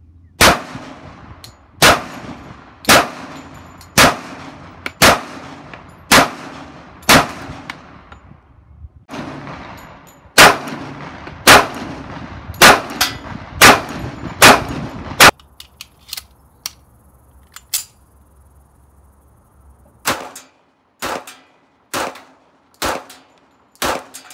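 M1911A1 pistols in .45 ACP firing: two strings of about seven shots each, roughly a second apart, then a few light clinks after a pause. A quieter string of about five shots, at the same pace, comes near the end.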